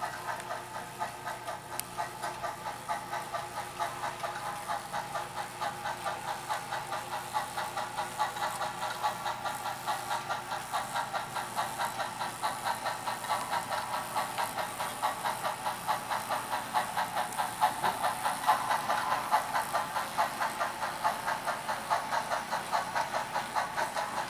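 HO scale model steam locomotive running with a train of ore cars, its chuffing a steady rhythmic beat of about four a second.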